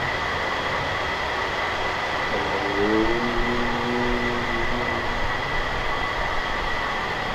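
A man chanting one long "Om" on a single held pitch, starting about two and a half seconds in with a short upward slide and dying away about three seconds later. It sits over a constant, fairly loud background noise.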